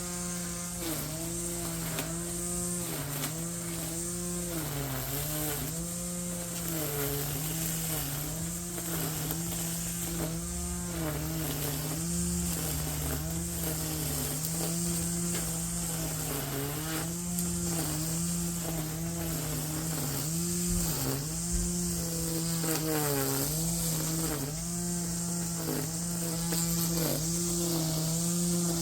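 Yardworks edger's motor running at speed, its pitch dipping briefly and recovering every second or two as it bogs under load while cutting.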